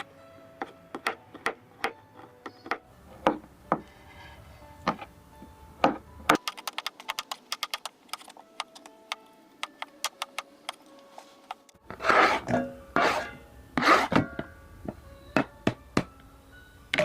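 Irregular sharp taps and knocks of kitchen utensils against a board and bowl during chatpate preparation, with a louder stretch of scraping and rustling about twelve seconds in. Faint background music runs underneath.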